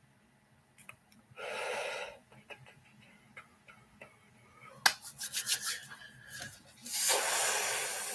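Handling noise from objects on a desk: a brief rubbing or scraping about a second and a half in, a quick run of sharp clicks and taps around the middle, and a longer rubbing sound near the end.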